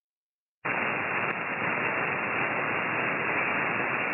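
Hiss of band static from a Flex 6500 SDR transceiver's SSB receive audio, held within a narrow voice passband. It cuts in abruptly from dead silence about half a second in, then stays steady.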